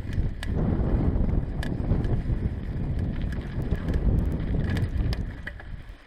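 Mountain bike riding over bumpy grass: a rough rumbling and jolting noise with wind on the microphone, broken by many sharp rattling clicks from the bike. It rolls over wooden planks about four seconds in, and the noise drops off right at the end.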